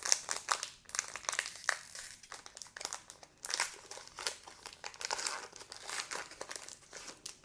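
Pokémon card pack packaging crinkling as it is handled, a dense run of irregular crackles that stops near the end.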